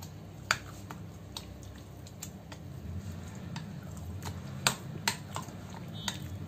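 A hand mixing thick rice-flour and curd batter with chopped vegetables in a glass bowl, with scattered light clicks against the glass.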